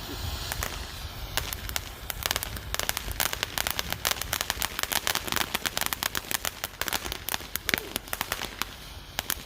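Fireworks crackling: a rapid, irregular string of small sharp pops that thickens after the first couple of seconds.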